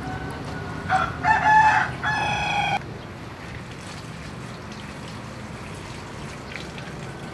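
A rooster crows once, starting about a second in and lasting about two seconds, the last note held steady before it cuts off.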